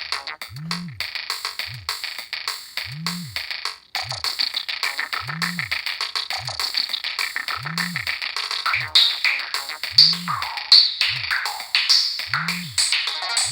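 Preloaded ringtone of a Samsung SGH-E720 mobile phone playing: an electronic tune with a drum-machine beat, a low bass hit about every 1.2 seconds under busy synth notes. It drops out for a moment about four seconds in, then carries on.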